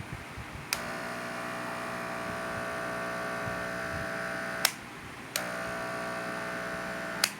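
Electric vibrating hair clipper being test-run after cleaning and oiling, its vibration working properly. It is switched on with a click, buzzes steadily for about four seconds, and clicks off. After a short gap it clicks back on, buzzes again and clicks off near the end.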